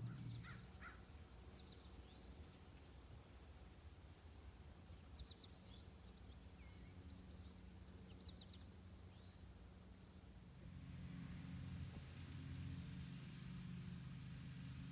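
Faint outdoor field ambience: a steady high-pitched insect drone, with scattered short bird chirps in the first half. About two-thirds of the way through, a low rumble comes up as the insect drone fades.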